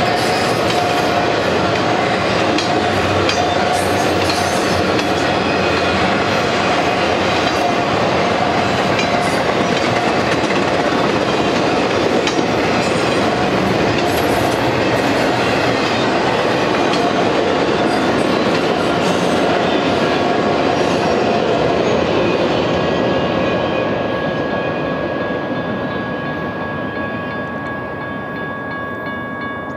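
Intermodal freight train of double-stack and trailer-carrying cars rolling past at speed, a steady rumble and clatter of wheels on rail. The train noise fades over the last several seconds as the end of the train passes, leaving the steady ringing of the grade-crossing bell.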